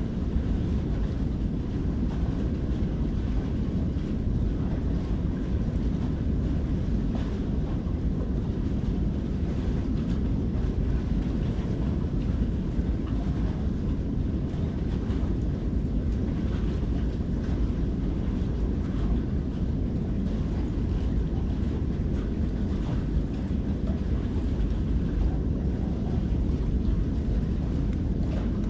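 Steady low rumbling noise with no clear bird calls standing out.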